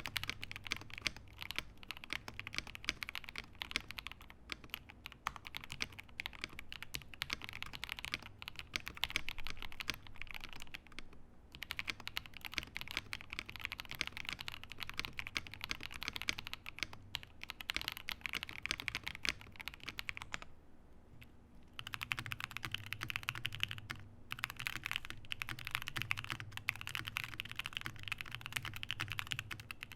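Fast typing on a computer keyboard, a dense run of key clicks picked up close on an Audio-Technica AT2020 condenser microphone. The typing breaks off briefly about eleven seconds in, and again for a second or so around twenty-one seconds in.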